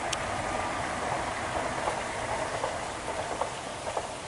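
Miniature steam train approaching along the track: a steady hiss with a few sharp clicks, about two seconds in and again near the end.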